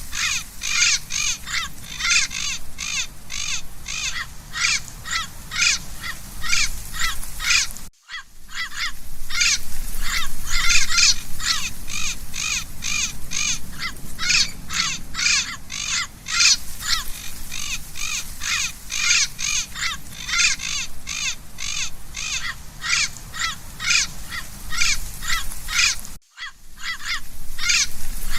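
Parrots giving harsh, rapid squawking calls, about two to three a second in a continuous run, broken by two abrupt split-second gaps.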